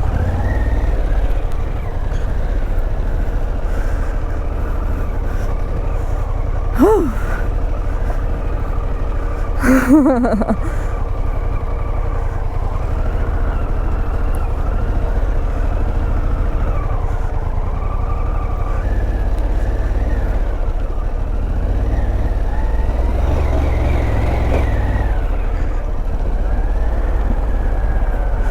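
Harley-Davidson Pan America's V-twin engine running while the motorcycle is ridden off-road, its pitch drifting up and down with the throttle over a heavy low rumble. Two short sounds with sliding pitch come about 7 and 10 seconds in.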